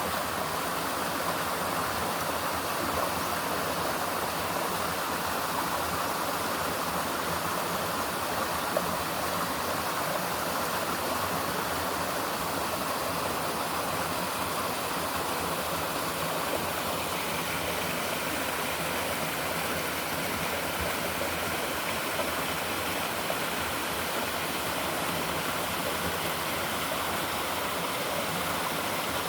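River water running steadily over stones, a continuous rushing flow.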